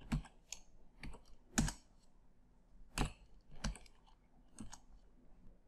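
Computer keyboard typing: about seven separate keystrokes at uneven intervals, with a gap of over a second in the middle.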